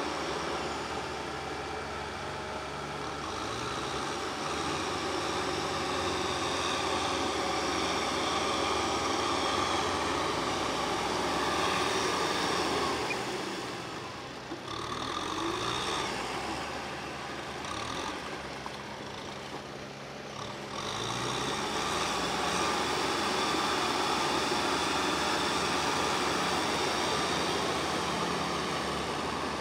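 Kubota farm tractor's diesel engine running under load as it drives a rotary tiller through wet paddy mud. The engine note shifts up and down and quietens briefly twice in the middle.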